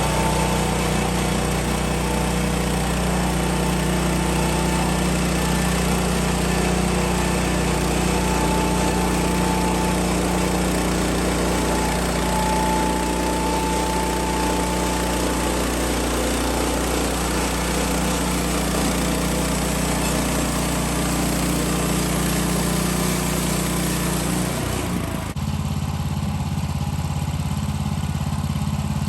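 Sawmill engine running steadily while the blade rips a board lengthwise, with a broad cutting noise over the engine. About 25 seconds in the cutting noise drops away and the engine runs on at a slightly different note.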